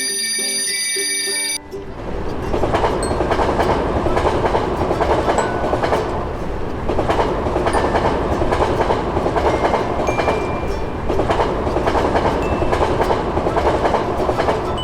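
A level-crossing warning bell ringing briefly with steady tones. About a second and a half in it cuts off suddenly, and a train is heard passing over the crossing: a dense, continuous rumble and clatter of wheels on the rails.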